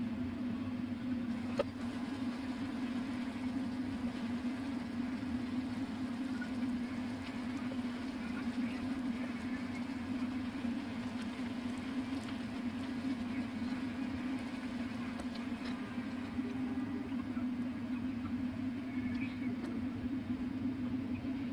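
Chicken wings sizzling in a sticky teriyaki glaze in a frying pan, over a steady low hum, with one light knock about a second and a half in.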